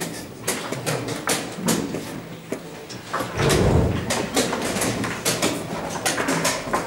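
Wooden chess pieces set down hard on a wooden board and chess clock buttons pressed in rapid turns: many sharp clicks and taps in a blitz time scramble, with one heavier thud about three and a half seconds in.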